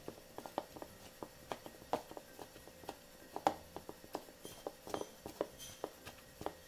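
Silicone spatula mixing shredded imitation crab sticks in a bowl: irregular soft taps and clicks against the bowl, about two or three a second, the loudest a little past the middle.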